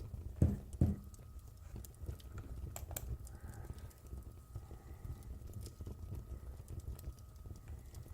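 Crackling fire: irregular sharp crackles and pops over a steady low rumble, with two louder knocks about half a second and a second in.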